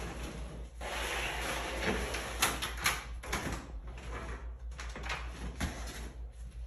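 Rustling of a plastic trash bag, then a few sharp clicks and knocks as the apartment's front door is unlocked and pulled open.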